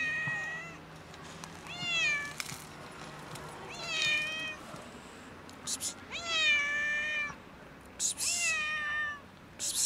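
Tabby-and-white street cat meowing repeatedly: about five separate meows, roughly two seconds apart. The one about six seconds in is the longest.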